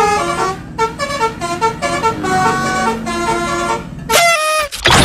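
Basuri telolet bus horn playing a quick melody of changing notes over a steady low hum. About four seconds in, a tone glides steeply downward, and a sudden loud blast follows at the end.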